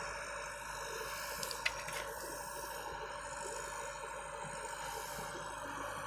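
Excavator's diesel engine running steadily, with one short sharp click or clank nearly two seconds in.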